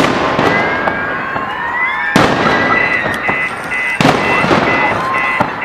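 Fireworks going off: three sharp bangs about two seconds apart over a steady crackle, with rising whistles. From about three seconds in, a car alarm beeps in an even pulse, about twice a second.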